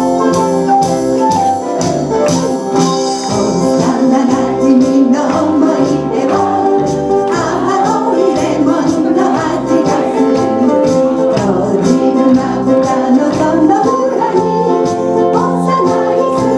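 Live band playing an upbeat song with held chords and a steady beat with regular ticks on top; a voice joins about four seconds in, singing the melody.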